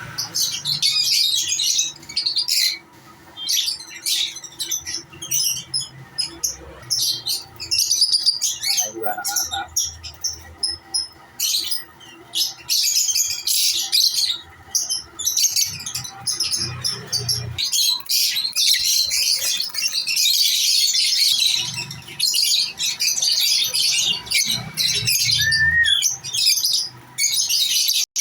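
A crowd of lovebirds chattering and squawking together, a dense, continuous mass of sharp, high calls.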